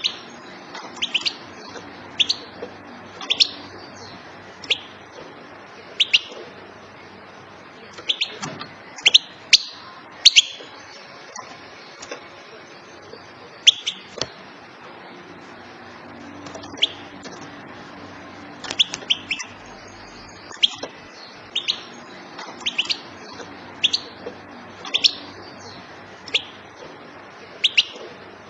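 Female European goldfinch calling: short, sharp, high call notes, singly or in quick twos and threes, repeated every second or two. This is the female's call used to set male goldfinches singing.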